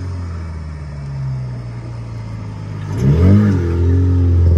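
Car engine running steadily, then revving up sharply about three seconds in as the car drives past close by, staying louder afterwards.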